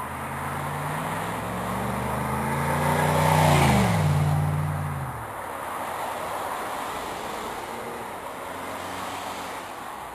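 A road vehicle passing close by. Its engine and tyre noise build to a peak about three and a half seconds in, the engine note drops in pitch as it goes past, and then it fades away.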